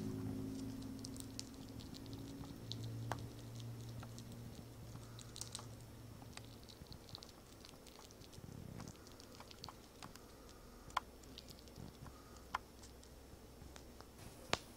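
Baby fox squirrels' claws scratching and clicking as they clamber over cloth and the camera: a scatter of small ticks and scrapes, with a few sharper clicks in the second half.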